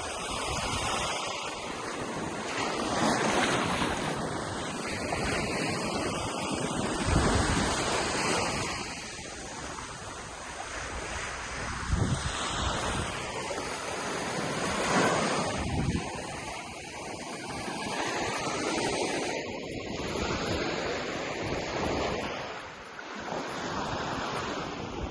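Ocean surf breaking and washing up on a beach, swelling and fading every few seconds, with wind buffeting the microphone.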